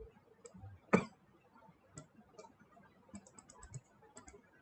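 Scattered light clicks and taps of computer input while a line is drawn on screen: one sharper click about a second in, then a quick run of faint clicks past the three-second mark.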